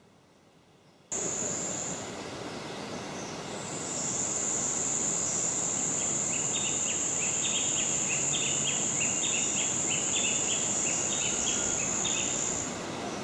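Rainforest insects making a steady, high-pitched shrill drone that breaks off briefly and resumes. A run of short, repeated chirps sounds through the middle, all over a steady background hiss.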